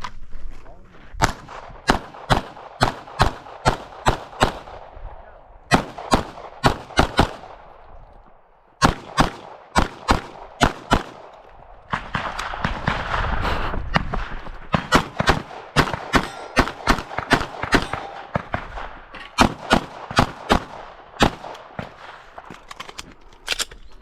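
Pistol shots fired in fast pairs and strings during a timed course of fire, with short breaks between strings as the shooter moves and reloads.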